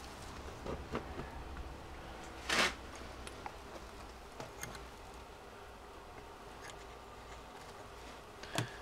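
Small clicks and handling noises from wire and pliers being worked by hand on a workbench, with one louder rustling scrape about two and a half seconds in and a sharp click near the end, over a steady low hum.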